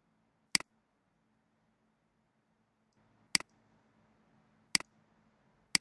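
Computer mouse clicking four times, single sharp clicks a second or more apart, over a faint low hum.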